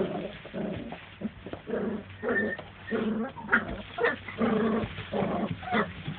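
Month-old puppies giving a run of short, pitched calls, about ten in six seconds.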